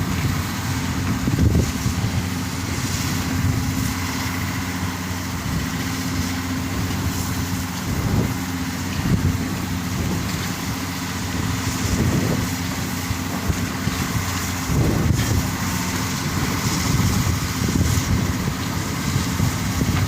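Ferry's engine running steadily, with gusts of strong wind buffeting the microphone.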